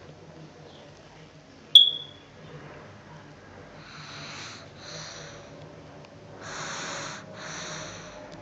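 A person snoring in sleep: two pairs of noisy breaths, in and out, in the second half, the second pair louder. About two seconds in, a single sharp click with a brief high ring is the loudest sound.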